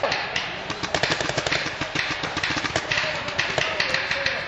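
Paintball markers firing: sharp pops in quick runs of several a second.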